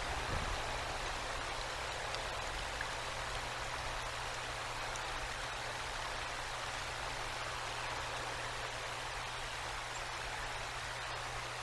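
Steady hiss of a winter storm, wind and icy rain, over a constant low hum, with one faint thump just under half a second in.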